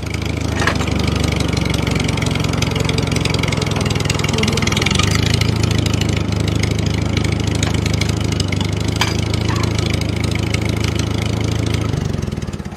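Engine idling steadily with a fast, even chugging pulse; its low note shifts slightly about five seconds in.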